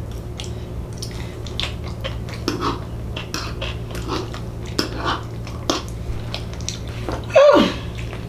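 Close-miked chewing and lip-smacking of a person eating, in many short wet clicks over a steady low hum. About seven seconds in comes one loud vocal sound that falls steeply in pitch.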